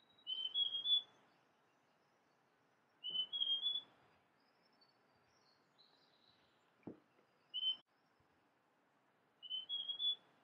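Male large niltava singing: short phrases of three or four clear whistled notes climbing in pitch, repeated about every three seconds, with one single note between. A single sharp click comes a little before the single note.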